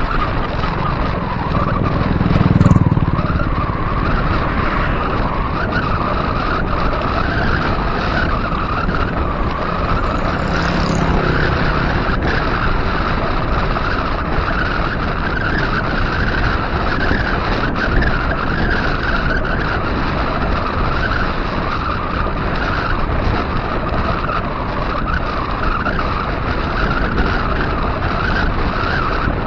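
Steady rush of wind over the camera microphone mixed with the hum of 700x45c tyres rolling on a concrete road at about 19 mph, with a brief low rumble about two and a half seconds in.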